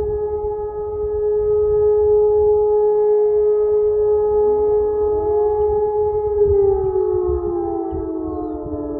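E57 electromechanical siren sounding a loud, steady tone during a test alarm, then starting to wind down, its pitch falling gradually from about six and a half seconds in.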